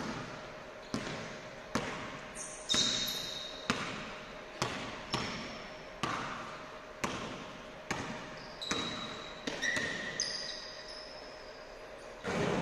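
Basketball bouncing on a hardwood gym floor about once a second, each bounce echoing in the large hall, with short high sneaker squeaks in between. A louder burst of noise comes in just before the end.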